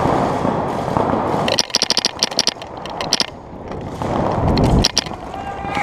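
Empire Axe Pro paintball marker firing a rapid string of shots, about ten a second, starting about a second and a half in, with a shorter burst near the end. A rushing noise comes before the shots.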